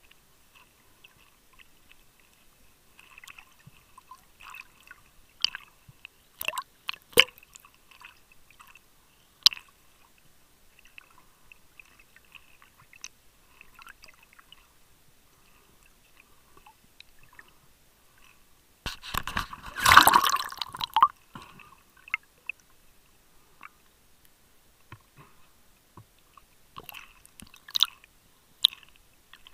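Water heard through a camera held underwater: scattered small clicks and crackles, with a louder burst of water noise lasting about two seconds, about two-thirds of the way through.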